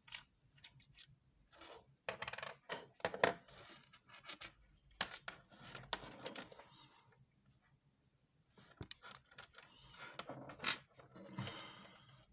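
Small metal tools clicking and scraping against a wristwatch case as it is handled and opened, in a run of irregular light metallic clicks with a brief pause partway through and one sharper click near the end.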